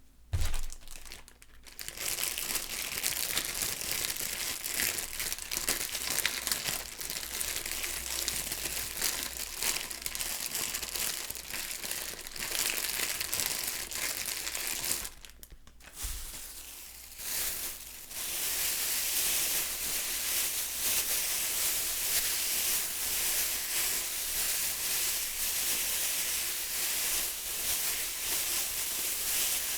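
Plastic bag being crumpled and crinkled, a dense crackling that pauses briefly about halfway through and then goes on more steadily.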